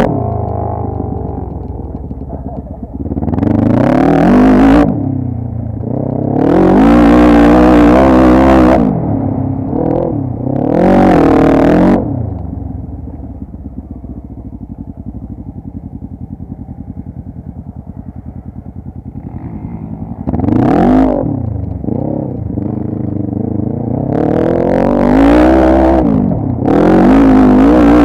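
ATV (quad bike) engine revved up and down in repeated bursts, about six times, settling to a steady idle for several seconds in the middle.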